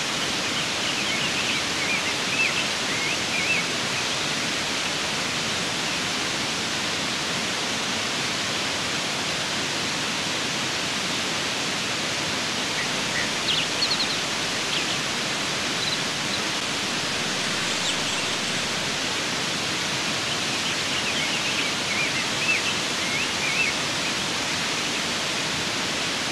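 Waterfall in high spring flow, a steady rush of falling water. A few short high chirps sound over it about two seconds in, midway and near the end.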